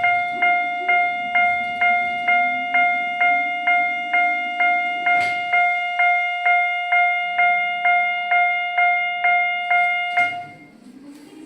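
Japanese railway level-crossing alarm on a crossing model ringing its repeated 'kan-kan' bell tone, a little over two strikes a second, then cutting off about ten seconds in.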